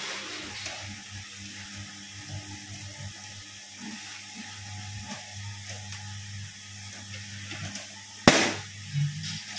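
Feed mixer running with a low steady hum while mixed feed pours from its discharge chute into a sack with a light hiss. A single sharp knock near the end.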